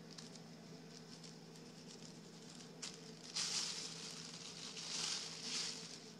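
A cat rustling crumpled thin plastic shopping bags. A few faint crinkles come first, then louder crackly rustling from a little past halfway until near the end.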